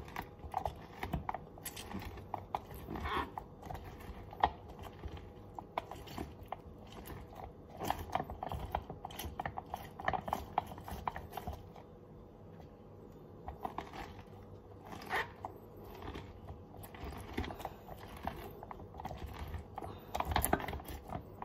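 Lemons being squeezed by hand for juice: irregular small clicks and knocks of handling, with one sharper knock about four and a half seconds in.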